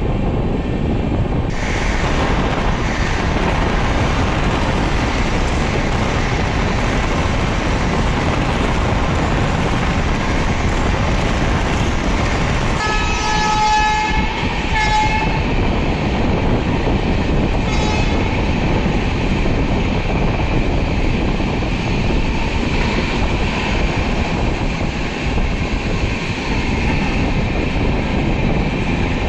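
Express passenger train running at speed, heard from an open coach doorway: a steady rumble of wheels on the track throughout. About halfway through the locomotive horn sounds, one longer blast followed by a short one, with a faint brief toot a few seconds later.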